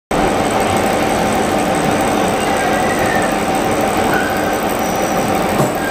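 Gear-cutting machine running steadily as it cuts teeth into an MC cast nylon gear blank, shedding nylon chips: a constant mechanical drone with a steady whine.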